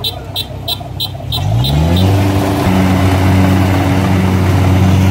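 A rice combine harvester's engine revs up about a second and a half in and holds at high speed under load as the bogged machine strains to climb out of the mud. Before the rev, a rhythmic ticking runs about three times a second.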